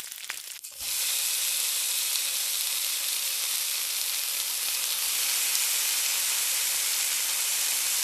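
Deep-frying sizzle: hot oil hissing, which starts suddenly about a second in and then runs on steadily.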